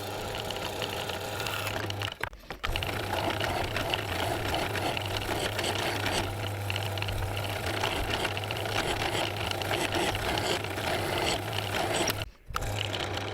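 A machine running steadily with a low hum and a fast mechanical chatter, cut off briefly twice: about two seconds in and near the end.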